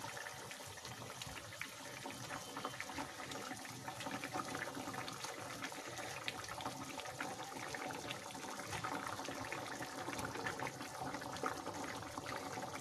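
Fish curry boiling in a kadai: a steady bubbling with many small irregular pops.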